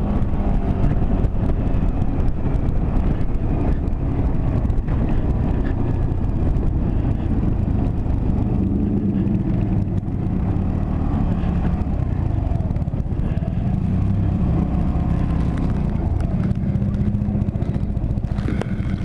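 Motorcycle engine running under way, its pitch shifting up and down a few times with throttle and gear changes, over steady road and wind rush.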